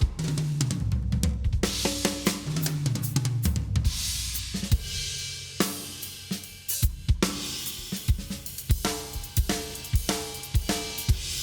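Drum kit played in a steady groove: bass drum, snare, hi-hat and cymbals, with dense, evenly spaced hits.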